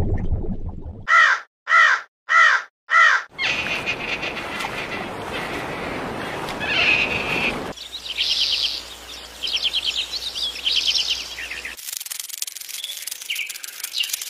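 Four loud bird calls in quick succession, about half a second apart, followed by a stretch of noisy hiss. Later come bursts of fast, high chirping trills.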